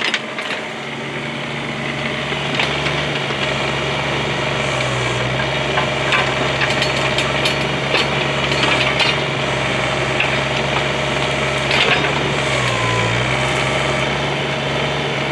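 Bobcat 320 mini excavator's diesel engine running steadily, its pitch sagging briefly about five seconds in and again near the end. A few sharp metallic knocks come over it.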